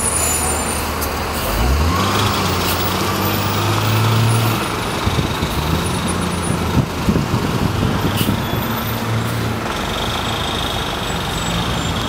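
Road traffic: a motor vehicle's engine revs up about a second and a half in, over steady road noise.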